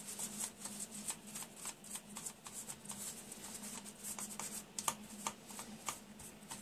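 Toilet paper soaked in isopropyl alcohol scrubbed back and forth over a printed circuit board, a quick, irregular scratchy rustle of many short strokes, cleaning flux residue off the solder side after desoldering.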